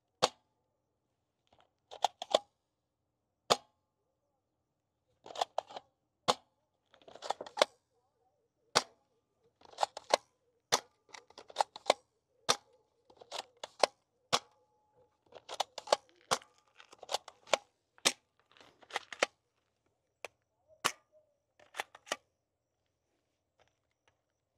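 Hand-cocked, belt-fed toy gun being pulled back and fired again and again: a string of sharp snaps, irregular and often in quick pairs, about one or two a second, dying away near the end.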